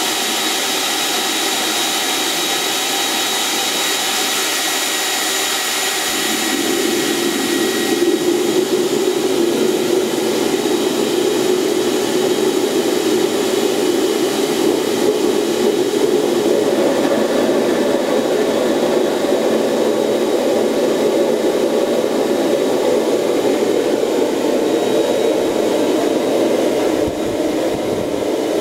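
Air blower feeding a homemade gas turbine combustion chamber, a steady rush of air with a high whine. About six seconds in the combustor lights on propane, and a deeper, steady burning rumble joins and carries on, a little louder from about eight seconds.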